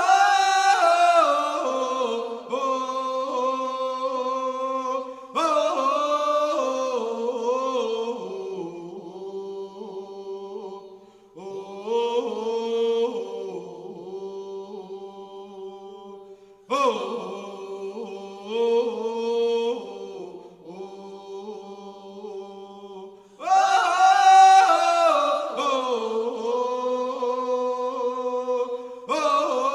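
First Nations chant sung without accompaniment: repeated phrases about every six seconds, each starting loud and high and stepping down through held notes.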